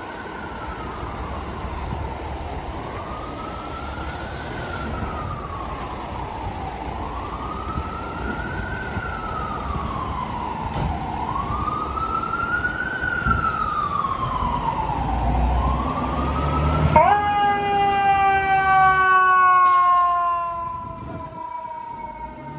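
FDNY fire truck's siren wailing, its pitch rising and falling about every four seconds. About 17 seconds in a louder, deeper blast of several tones at once cuts in, its pitch slowly sinking, and it drops away a few seconds later.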